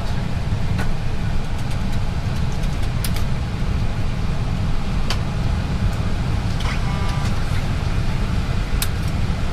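Steady low rumble of an Airbus A320's flight-deck background noise, with a few faint clicks and a brief faint tone about seven seconds in.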